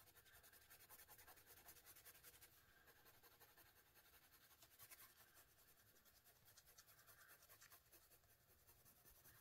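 Faint scratching of a soft-core colored pencil stroking back and forth across the paper page of a coloring book.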